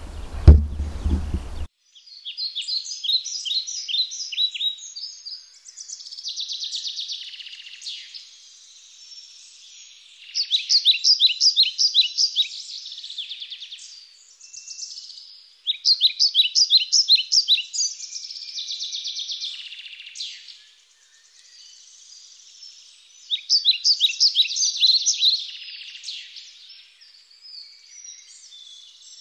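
Songbird singing: phrases of rapid, high repeated notes, each a few seconds long, with short pauses between them. For the first second or two a low rumble of the camera being handled is heard, which then cuts off abruptly.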